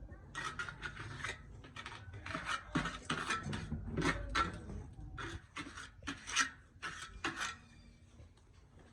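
Repeated rasping scrapes, roughly two strokes a second and uneven, dying away about a second before the end.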